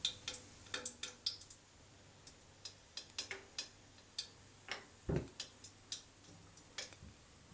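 Irregular faint pops and crackles of hot oil around milk-powder dough balls (gulab jamun) frying in a pan, with one duller knock about five seconds in.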